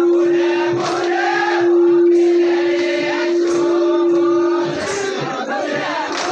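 Adivasi folk dance music: a group of voices singing over one loud held drone note that breaks off sharply about three-quarters of the way through, with a few sharp percussion strokes.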